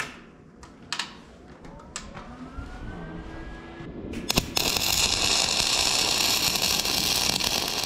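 Wire-feed welder arc crackling and hissing steadily as it welds on an aluminium connecting rod, starting about halfway through. A few sharp clicks and knocks of handling come before it.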